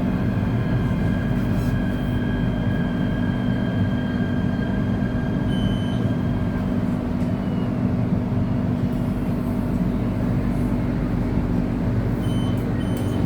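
Inside a KTM Komuter electric multiple unit, steady running rumble with a faint high motor whine that fades away about halfway through. Near the end a string of short high beeps starts, about two a second.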